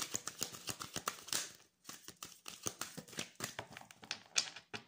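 A deck of tarot cards being shuffled by hand: a quick run of papery card flicks and riffles, with a short pause about two seconds in.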